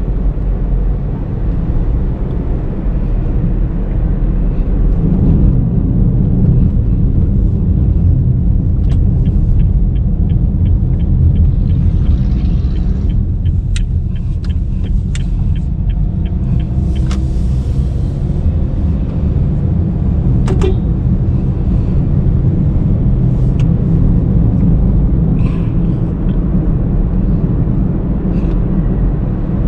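A 2019 Honda Brio V CVT driving, its engine and road noise making a steady low rumble. Midway a run of even ticks, about two a second, sounds for several seconds.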